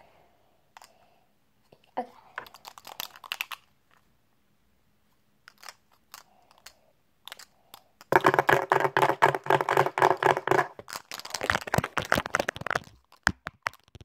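Plastic marker caps worn on the fingertips as fake nails, tapping and clicking rapidly on a tabletop in bursts: a short flurry about two seconds in, a few single clicks, then a long dense run from about eight to thirteen seconds.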